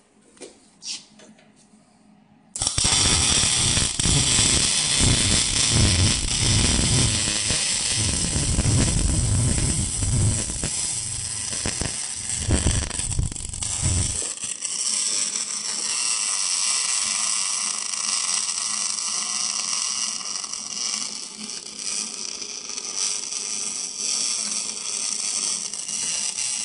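CO2 MIG welding arc from a Taiwan Power 200 CO2 semi-automatic welder: a few clicks, then the arc strikes about two and a half seconds in and crackles steadily. About halfway through, the deep rumble in it drops away, leaving a steadier, higher crackling hiss.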